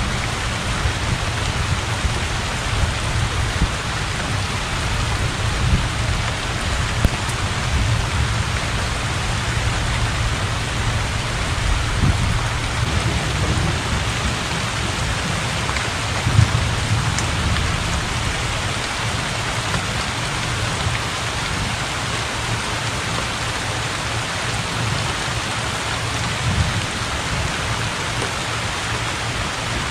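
Heavy rain pouring steadily onto open water, with a low rumble underneath that swells now and then.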